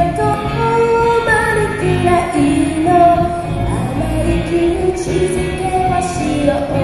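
A band plays live while a singer sings a melody over the accompaniment.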